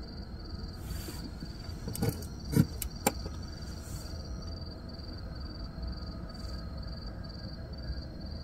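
An insect chirping in an even, high pulsing rhythm of about two to three chirps a second over a steady low outdoor rumble. A couple of thumps and sharp clicks come about two to three seconds in, the loudest about two and a half seconds in.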